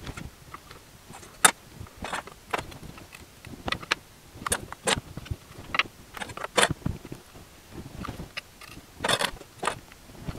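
Steel dividers handled and stepped along a walnut board, their points tapping into the wood: irregular small clicks and taps, with several close together near the end.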